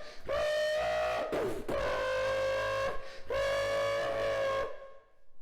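A beatboxer imitating a car with the voice: three long held, steady-pitched notes, each starting with a quick upward swoop, before it breaks off near the end.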